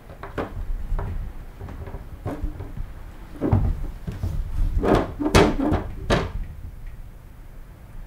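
Plastic cat flap knocking and clattering in its frame as a cat pushes through it: a string of sharp knocks, the loudest about five to six seconds in.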